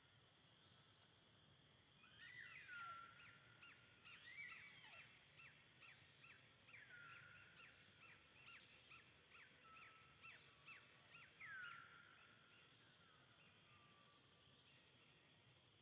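Faint animal calls: a run of short, high chirps, each falling in pitch, about two a second, starting about two seconds in and dying away a few seconds before the end, over a faint steady hiss.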